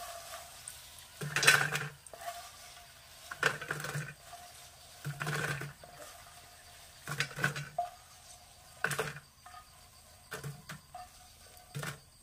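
A spatula scraping and scooping in a frying pan in about seven short strokes, a second or two apart, as fried food is lifted out.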